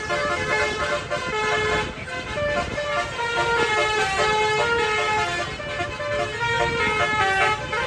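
Indonesian bus 'telolet' (basuri) multi-tone air horn playing a melody of short notes that step up and down in pitch, with the bus's engine rumbling underneath.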